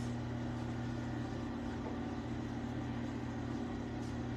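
Electric potter's wheel motor running at a steady speed with a low, even hum.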